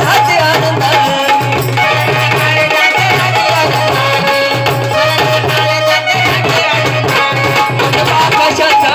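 Instrumental folk-devotional music: tabla-style hand drums keep a steady rhythm under a sustained keyboard melody, with no singing.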